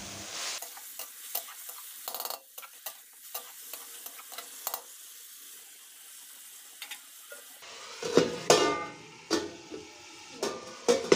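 Metal spatula stirring and scraping chicken and onions in an aluminium kadhai while the food sizzles as it fries. Near the end, a flat aluminium lid is set on the pan with a few clanks and a brief metallic ring.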